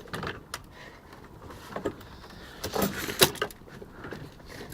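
A run of scuffs, knocks and clicks from a toy car being handled and bumped, with a cluster of sharper knocks about three seconds in.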